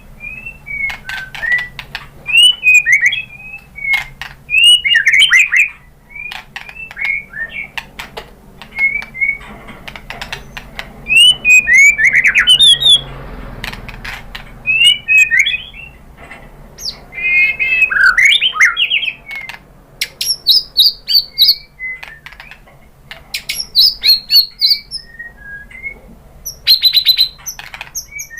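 White-rumped shama (murai batu) singing: rapid, varied phrases of sweeping whistles broken up by sharp clicking notes, with short pauses between phrases.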